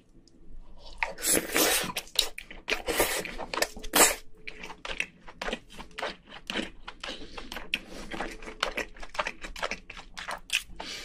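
Close-miked chewing and wet mouth sounds from eating a mouthful of noodles mixed with king crab innards: a dense run of quick smacks that starts about a second in.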